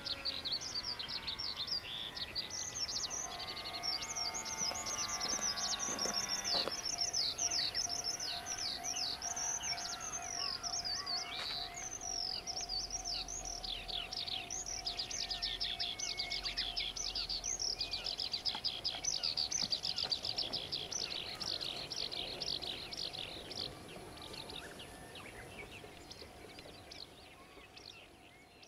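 Songbirds singing continuously in rapid runs of high, falling chirps, fading out over the last few seconds.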